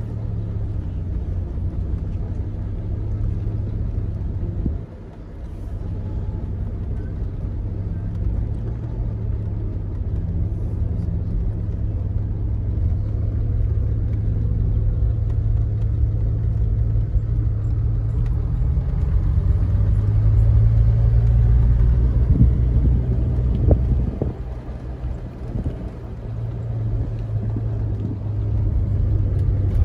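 Classic car running at low speed, heard from inside its cabin: a steady low engine hum with road noise. It drops out briefly about five seconds in, swells a little past the middle, then eases off for a moment before settling again.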